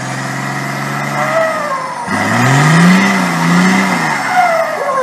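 Nissan Patrol GQ 4x4's engine pulling steadily, then revving up about two seconds in, dipping and revving again before falling off, as it climbs a muddy slope. A higher whine rises and falls over the engine note.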